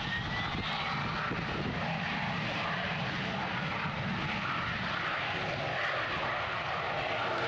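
Harrier GR7's Rolls-Royce Pegasus turbofan at high power as the jet takes off: a steady, noisy jet sound, with a whine rising in pitch in the first second.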